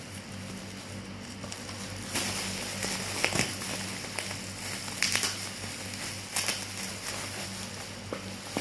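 Packaging being handled in an unboxing: crinkling and rustling with several sharp clicks and knocks, over a steady low hum.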